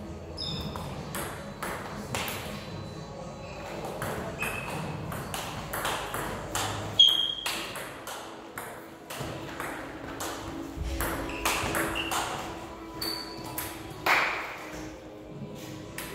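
Table tennis rally: the ball clicking sharply off the bats and the table, many hits in quick irregular succession.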